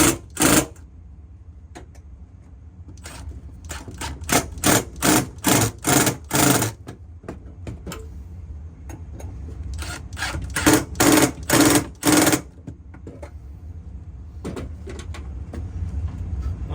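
Runs of rhythmic back-and-forth rasping strokes, like a hand saw cutting, about two to three strokes a second: a long run a few seconds in and a shorter one past the middle, followed by a few light ticks near the end.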